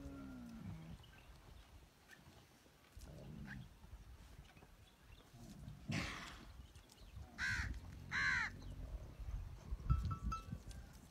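Dromedary camels making low grumbling sounds, one falling in pitch at the start and the loudest rumbling near the end, with two short higher-pitched calls in between, about seven and eight seconds in.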